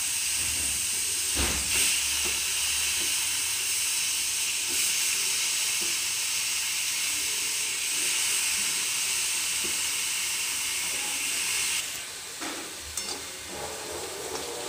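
Diced chayote and chana dal sizzling steadily in hot oil in an iron kadai. About twelve seconds in the sound drops to a quieter sizzle with a few light clicks as grated coconut, dried red chillies and curry leaves are stirred while they roast in a pan.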